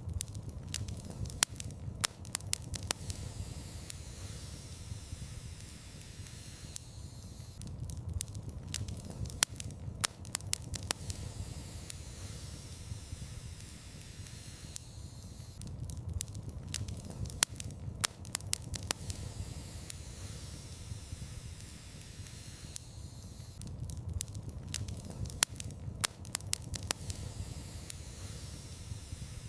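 Wood fire in a fireplace crackling and popping over a low, steady rumble of flame. The sharp pops come in clusters about every eight seconds.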